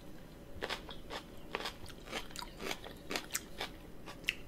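A person chewing a crunchy raw mini sweet pepper dipped in ranch: irregular crunches and wet mouth clicks, several a second.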